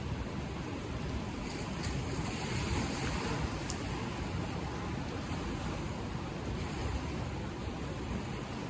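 Steady rushing noise, heaviest in the low end, with a few faint clicks about two to three seconds in.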